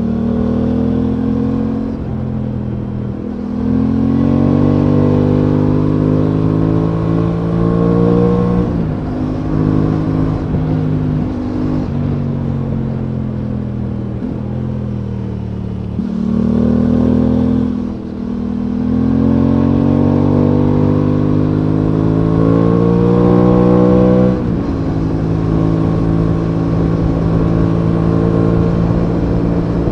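The Aprilia Tuono 660's parallel-twin engine pulls hard, heard from on the bike. Its pitch climbs under acceleration several times, and each climb is cut off by a sudden drop. Near the end it settles to a steady cruise.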